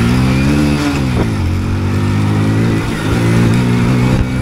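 Hero Splendor motorcycle's single-cylinder four-stroke engine under riding load off-road, its pitch rising and falling with the throttle. It revs up in the first second, eases off, and rises again about three seconds in.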